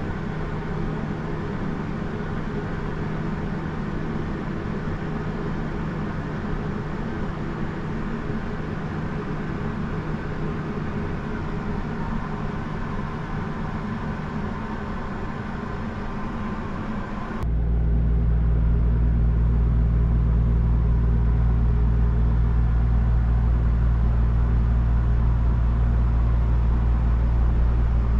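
Steady mechanical hum inside an enclosed ferris wheel gondola, a few even tones over a soft hiss. About two-thirds of the way through it suddenly switches to a louder, deeper hum and the hiss above it fades.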